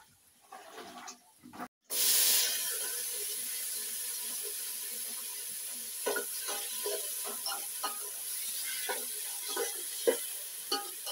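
Food sizzling steadily in an aluminium pot over a wood fire, starting abruptly about two seconds in. From about six seconds on, a spoon knocks and scrapes against the pot as it is stirred.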